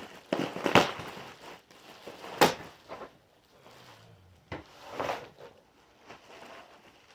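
Knocks and clunks of an adjustable bed base and its parts being handled during assembly: a cluster of knocks near the start, a sharp loud knock about two and a half seconds in, and another about five seconds in.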